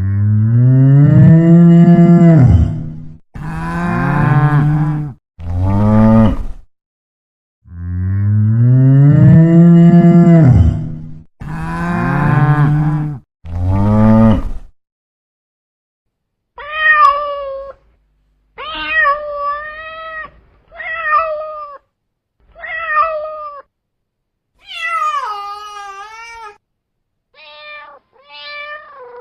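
Cattle mooing: six long, loud, low calls, each rising then falling in pitch. From about halfway, a cat meows over and over in shorter, higher calls, one of them sliding down in pitch.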